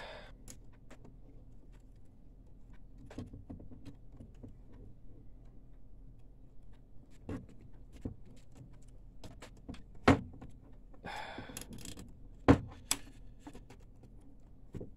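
Handling noise of a plastic zip tie being fitted around an ink tube on a printer's metal chassis: faint rustles and light clicks, with two sharper clicks about two-thirds of the way in and again shortly after, and a short rasp between them.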